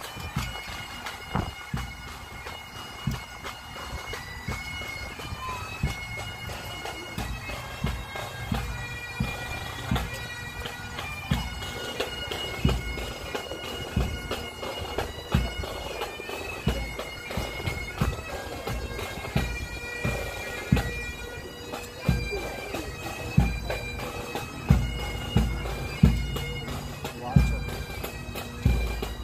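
Bagpipes playing a slow melody of held notes that step from pitch to pitch, with recurring low thumps underneath that get louder in the last few seconds.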